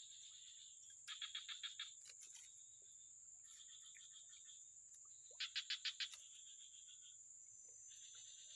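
Evening swamp chorus of insects and frogs: a steady high-pitched insect drone. Over it come repeated short trains of rapid chirps, about ten a second, each lasting under a second; two are loud and the others are fainter.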